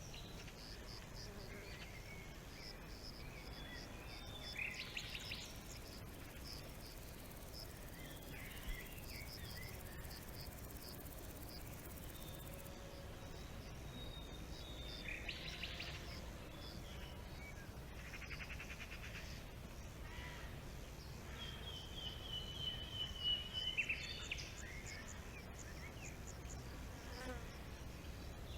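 Forest ambience of birds calling: a run of short, high repeated notes through the first half, several brief buzzy trills, and a clear whistled call that falls slightly about three-quarters through.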